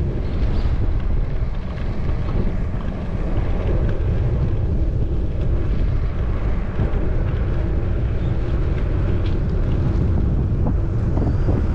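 Wind buffeting a bicycle-mounted GoPro Hero 10's microphone while riding: a steady, loud low rumble.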